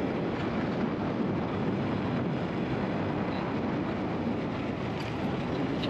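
Motorcycle being ridden on the road, likely the rider's Yamaha MT-15: a steady mix of engine and wind and road noise at an even level.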